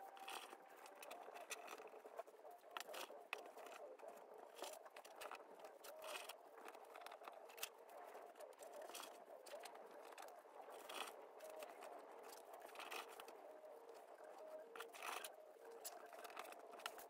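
Faint crinkling and rustling of plastic deco mesh being scrunched and handled, with many small scattered clicks.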